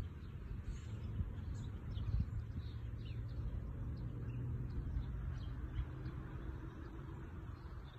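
Small birds giving short, high chirps scattered throughout, over a low rumbling background with a steady low hum in the middle stretch.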